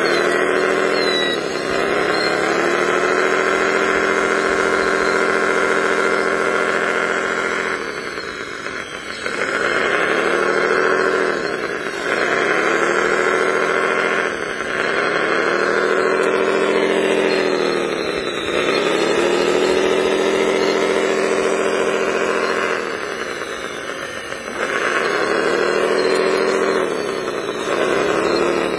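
Radio-controlled wheel loader's motors whining steadily, the pitch sagging and recovering every few seconds as the bucket and drive come under load.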